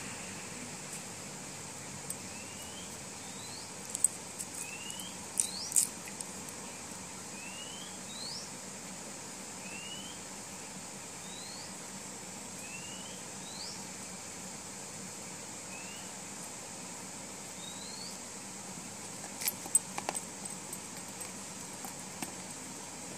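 A run of short rising chirps, one about every second and a half, over a faint steady hiss, with a few sharp clicks from handling a G-Shock watch's metal strap buckle and resin band.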